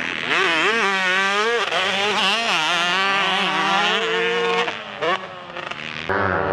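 Dirt bike engine revving hard, its pitch rising and falling quickly over and over. It drops away and goes quieter for about a second near the end, then a steadier, lower engine note cuts in abruptly.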